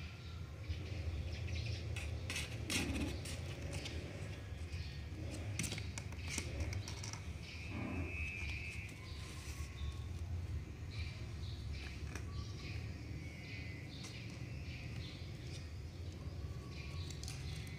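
Kittens' claws scratching and scrabbling on a cardboard box as they climb its walls, in many short scrapes and clicks. Brief high chirps come now and then, the longest about eight seconds in, over a steady low hum.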